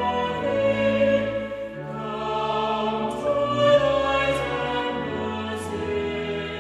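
Choir singing a hymn in slow, sustained chords that change every second or two.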